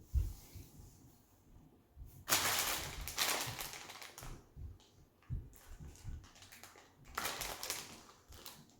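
Close-up eating: crunching and chewing of a green tea Kit Kat wafer bar, with soft chewing thuds throughout and two louder crackly bursts, about two seconds in and again around seven seconds in.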